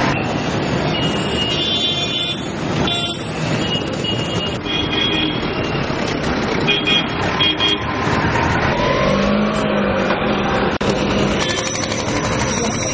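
Busy street traffic: motorcycle and other vehicle engines running in a steady din, with brief high-pitched notes cutting through now and then.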